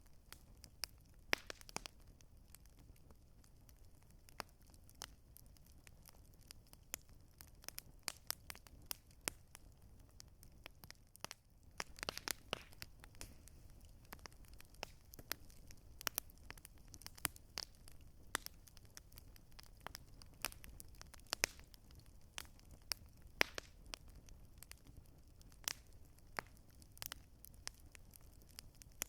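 Campfire crackling: irregular sharp pops and snaps of burning wood, sometimes in quick clusters, over a low steady rumble.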